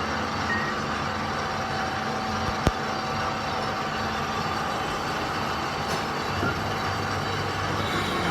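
Steady running machinery noise with a faint hum, broken by one sharp knock about two and a half seconds in and a lighter one near six seconds.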